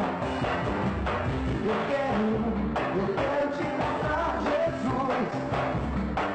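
A live band playing loud amplified music, with a voice singing over drums and bass.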